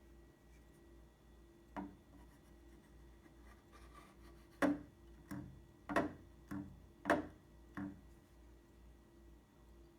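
About seven sharp clicks and knocks, one near 2 s and then a quicker run between about 5 and 8 s, from working a small spring-loaded magnetic latch on a fiberglass cowl oil door.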